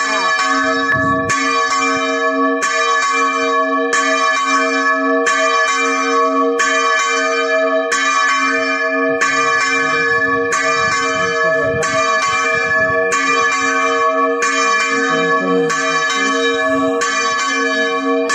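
A single hermitage bell being rung in a steady, even rhythm, about one stroke every 1.3 seconds. Each stroke rings on into the next, over a lasting low hum.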